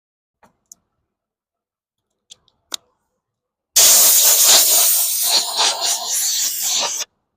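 A few light clicks, then a steady pressurised spray hiss lasting about three seconds that starts near the middle and cuts off sharply.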